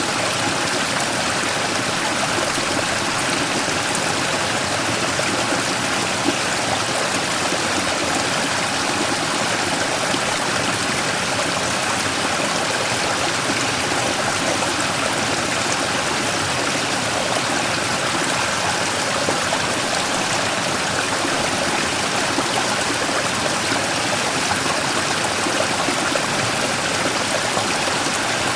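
Mountain stream rushing and splashing over a large rock in a small waterfall: a steady, even wash of water noise.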